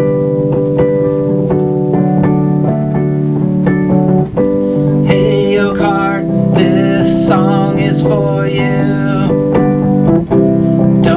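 Instrumental intro of a song: sustained keyboard chords with plucked notes, and a wavering melody line coming in about five seconds in.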